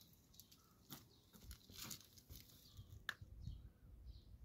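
Near silence, with a few faint scattered clicks and rustles.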